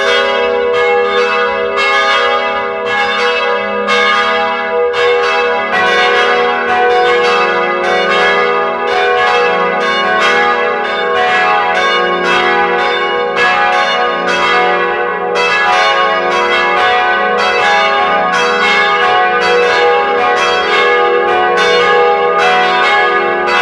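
Church bells ringing a continuous peal, two or three overlapping strikes a second, each leaving a long ring. A deeper tone joins about five seconds in.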